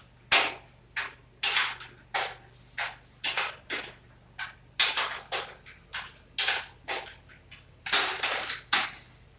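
Irregular sharp metallic clanks and knocks, roughly two a second, each with a short ring, of hand tools working on garage door hardware.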